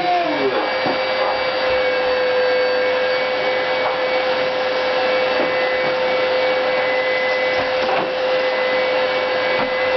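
Household vacuum cleaner running steadily, a constant whine over its motor and airflow noise.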